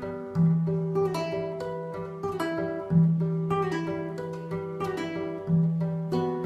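Solo acoustic guitar fingerpicking arpeggios. A low bass note is struck about every two and a half seconds, with plucked upper notes ringing over it.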